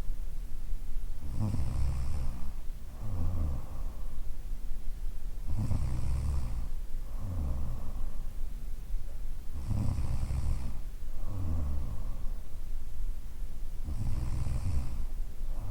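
A woman in her thirties snoring in her sleep, in a slow, regular rhythm of about one breath every four seconds. Each breath gives a longer, loud snore, then a shorter, softer one about a second later.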